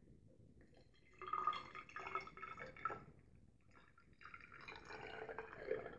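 Denatured alcohol poured in a thin trickle into a glass graduated cylinder, in two short spells: from about a second in to about three seconds, and again from about four seconds on.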